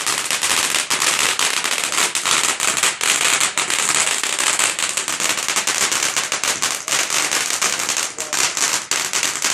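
Fireworks crackling: a dense, unbroken run of small sharp pops over a steady hiss.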